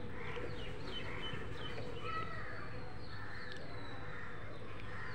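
Faint, scattered bird chirps, short quick calls that slide down in pitch, over a low steady background hum.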